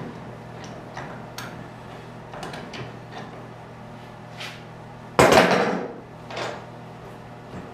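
Hand-cranked ring roller bending steel strip into auger flighting: small metallic clicks and knocks from the rollers and the strip, with one loud clang of steel about five seconds in, followed by a smaller knock.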